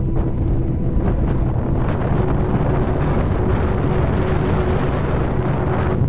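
Wind buffeting the microphone: a steady, loud low rumble with no distinct events. Faint held music notes sound underneath.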